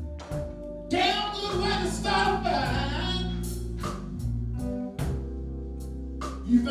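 Live blues: a man singing into a microphone over a band, with a steady bass line and drum hits. The sung phrase comes in about a second in and ends around the three-second mark, and the band plays on.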